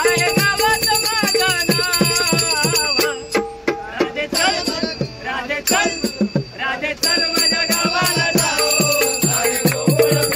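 Instrumental passage of a Marathi gavlan folk song: a wavering melody over a steady drum beat with jingling bells, thinning out for a few seconds in the middle.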